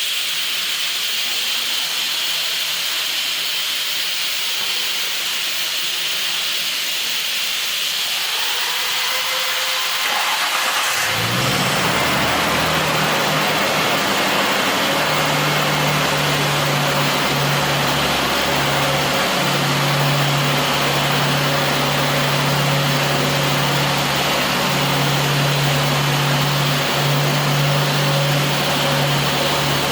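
A steady hiss, then about eleven seconds in a Nissan Skyline R34's RB straight-six engine comes in and idles steadily. It runs evenly with no misfire after its water-soaked spark plugs and coil packs were replaced.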